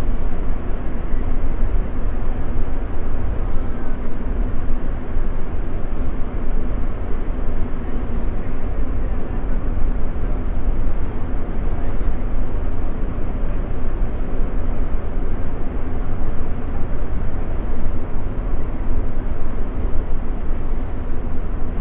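A steady, loud low rumble with a faint constant hum running under it and no distinct events.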